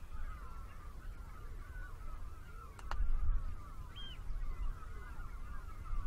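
A large colony of birds calling in alarm, a dense chorus of many overlapping calls, stirred up by people walking close to the colony. Wind rumbles on the microphone underneath.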